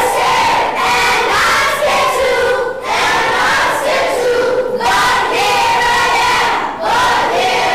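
Children's choir of many young voices singing loudly together, in phrases of about two seconds with short breaks between them.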